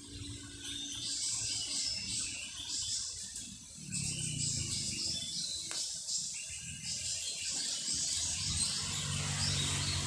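Forest ambience: birds and insects chirping continuously at a high pitch. From about four seconds in there is low rustling, with one click near six seconds.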